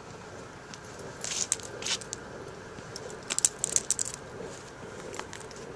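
Producer gas burning in a homemade gasifier's burner: a steady low rush of flame with clusters of sharp crackles and clicks, about a second in and again around three to four seconds in.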